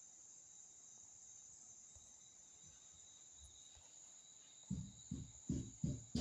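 Faint, steady high-pitched chorus of crickets. Near the end, a quick run of five or six dull low thumps breaks in over it.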